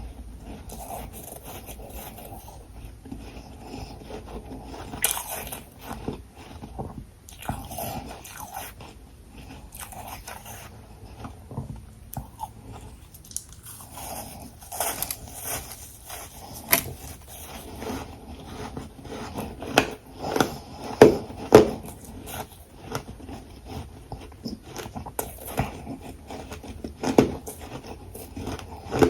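A person biting and chewing frozen ice close to the microphone: a run of crisp crunches and crackles as the ice breaks between the teeth. The crunches come thickest and loudest about two-thirds of the way through.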